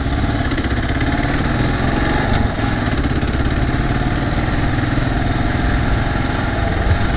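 Kawasaki KLR 650's single-cylinder engine running steadily at low road speed as the bike is ridden slowly.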